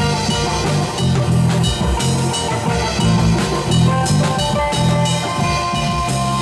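Live band playing an instrumental jam: drum kit keeping a steady beat under a bass line and sustained electric guitar notes.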